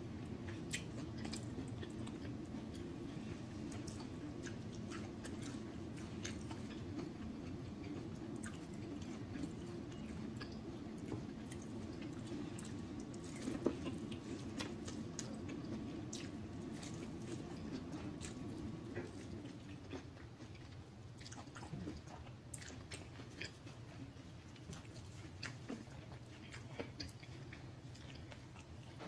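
Close-miked chewing and lip-smacking on shrimp in butter sauce, with scattered wet mouth clicks throughout. A low steady hum underneath fades out about two-thirds of the way through.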